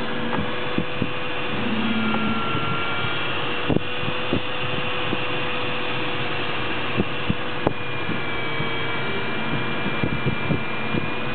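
Steady rush of airflow around a glider's cockpit canopy in flight, with a faint steady tone underneath and scattered light clicks and ticks.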